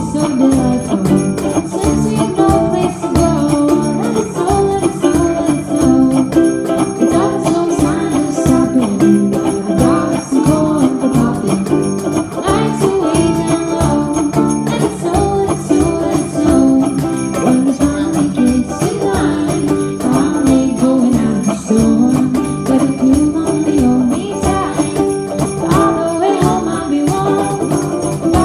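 Small acoustic band playing a holiday song live: strummed ukulele and cajón beat, with jingle bells shaken steadily in rhythm.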